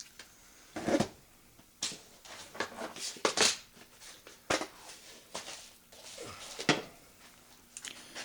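Metal calipers and small tools being handled on a workbench: irregular clicks, knocks and short scrapes, roughly one every second.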